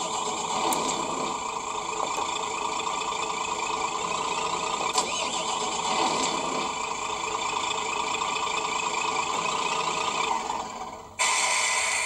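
RC truck sound module (GT Power) playing a diesel truck engine running steadily through its small speaker, with a short loud hiss near the end.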